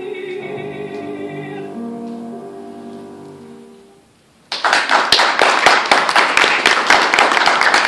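A woman's classical singing voice holds the final notes over piano and stops about two seconds in; the piano dies away, and after a short hush an audience bursts into applause that goes on to the end.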